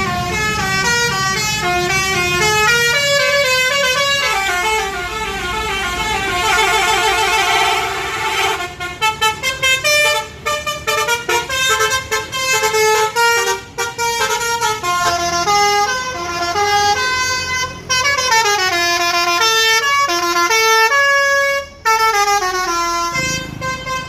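Telolet basuri bus horns playing quick melodies of stepped horn notes, sometimes several notes at once, over a bus engine's low running.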